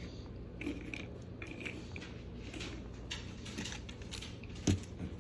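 Small plastic toy train cars and cargo pieces being handled, giving light clicks and rattles, with one louder knock just before the end.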